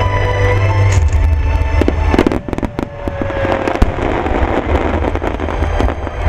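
Aerial fireworks going off, with a rapid cluster of sharp bangs and crackles about two seconds in, then scattered crackling. Music with heavy bass plays under them.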